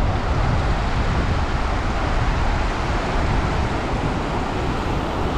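Steady wind buffeting the microphone, a continuous low rumble, with the wash of the sea on the reef underneath.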